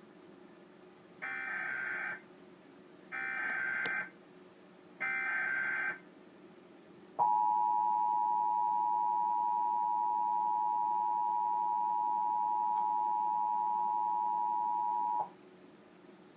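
Emergency Alert System activation for a Required Monthly Test. Three short bursts of SAME digital header data, each about a second long and a second apart, are followed by the two-tone EAS attention signal. The attention signal is held steady for about eight seconds and then cuts off sharply. Together they open an alert, ahead of its spoken message.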